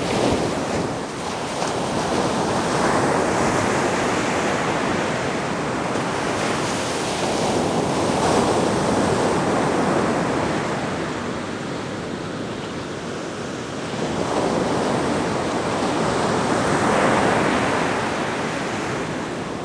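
Ocean surf breaking on a beach, a continuous wash of waves that swells louder a few times and eases between, with some wind on the microphone.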